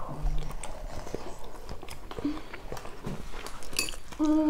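People eating at close range: chewing and mouth sounds with small scattered clicks of chopsticks and a fork against bowls and plates. A child's voice starts near the end.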